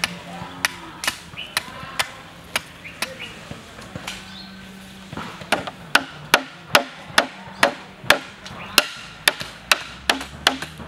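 A hatchet striking the top of an upright bamboo pole again and again, driving it into the ground as a stake: sharp wooden knocks, scattered at first, then quick and regular at about two to three a second from about halfway in.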